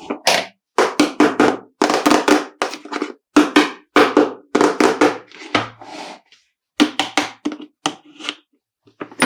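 Toy pieces and packaging handled by hand while being unboxed: a quick, uneven run of taps and knocks, several a second, with short pauses.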